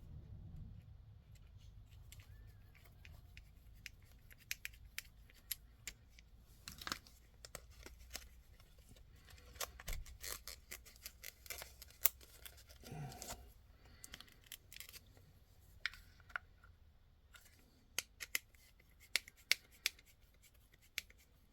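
Scattered small clicks, taps and a brief rustle of hands working with cardboard and small kit parts at a workbench, irregular and faint.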